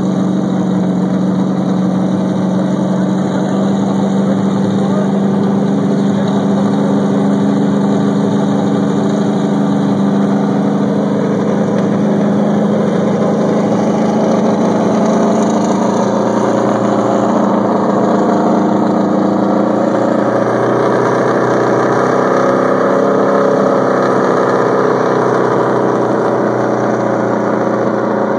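NASCAR stock car's V8 engine idling steadily, its pitch wavering slightly for a few seconds past the middle.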